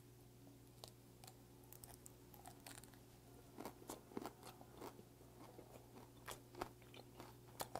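Close-up chewing of a whole bone-in piece of raw pearl-spot chromis (jaridom) sashimi, its tough bones crunching in faint, irregular clicks that come thicker from about three and a half seconds in.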